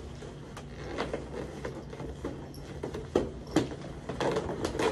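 Inflated latex balloons squeaking and rubbing against one another as a set of four is pushed and twisted into a balloon column, with irregular squeaks and a few sharper knocks, busier in the second half.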